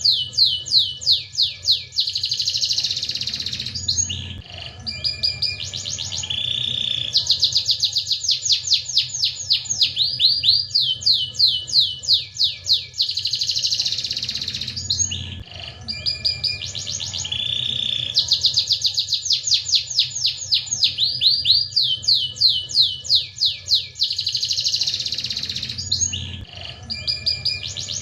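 Domestic canary singing a long song of fast trills, each a quick run of repeated high, falling notes, with rolling and buzzy phrases between them. The same song sequence comes round again about every eleven seconds, as in a looped tutor recording.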